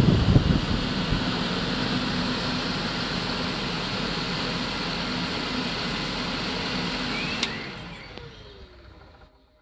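3D-printed radial fan impeller driven by a small DC motor, running with a steady whoosh of air and hum. About seven and a half seconds in there is a click, and the fan spins down with a falling pitch until it is nearly silent near the end.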